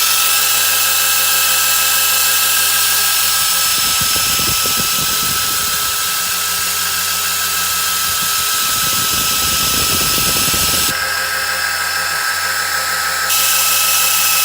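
Electric drill turning an oil-pump priming tool down the distributor hole of a Chevy 350 small-block, running steadily to drive the oil pump and prime the engine with oil under good oil pressure. A rougher, uneven sound joins the steady whine twice in the middle.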